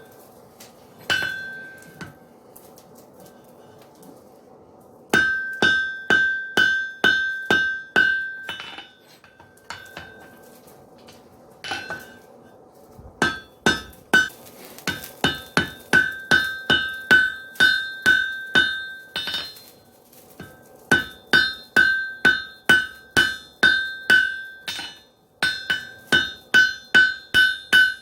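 Hammer blows on an anvil while forging a wrought iron axe body: runs of sharp strikes about two a second, each with a bright metallic ring, broken by short pauses.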